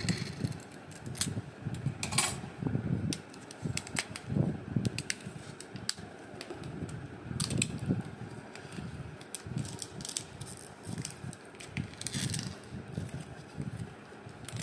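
Clear plastic shrink-wrap on a canvas board being slit with a utility knife and then torn and pulled off by hand: irregular crinkling and rustling with sharp clicks.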